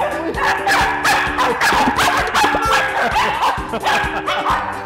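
Corgis barking and yipping in quick succession, with many short sharp barks close together.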